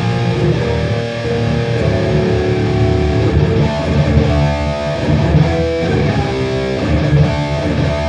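Electric guitar played through a Boss Katana Gen 3 2x12 combo amp: a run of ringing chords and single notes with the amp's Contour 1 setting switched on, the contour that adds warmth and lower-mid body.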